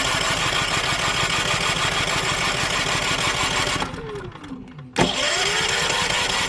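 Champion 3400-watt inverter generator's electric starter cranking its engine without it catching: a long crank that winds down about four seconds in with a falling whine, then a second crank starting suddenly about five seconds in. The engine's crankcase is empty of oil, which the owner finds is why it will not start.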